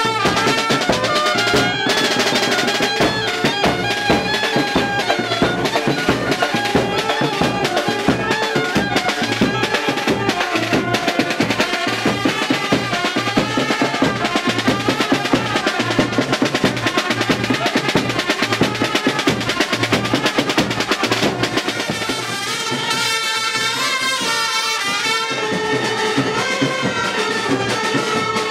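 Indian brass band playing: trumpets carry the melody over fast, steady drumming. About three-quarters of the way through, the drums drop away for a few seconds, leaving a wavering high melody, then come back in.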